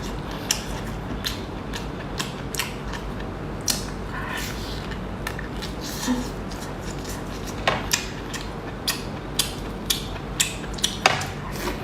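Crisp crunching and crackling from biting and chewing a fried chicken cutlet: irregular sharp crunches, coming thicker in the second half, over a steady low hum.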